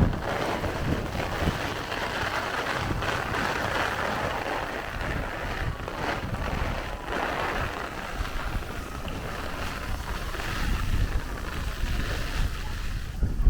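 Heavy rain falling with a steady rushing hiss while gusts of wind blow across the microphone in uneven low surges.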